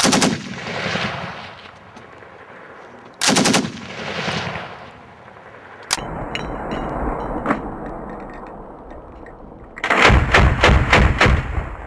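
Assault rifles fired in short automatic bursts: a burst right at the start, another about three seconds in, and a longer burst of about six or seven rapid shots near the end.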